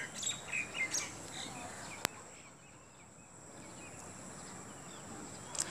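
A small knife peeling an onion over a steel plate: soft scrapes and small clicks, with one sharp click about two seconds in, over a faint steady high whine.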